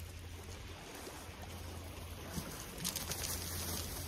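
Small sea waves washing over a shingle beach, a steady hiss of water running through pebbles, with a plastic bag crinkling briefly about three seconds in.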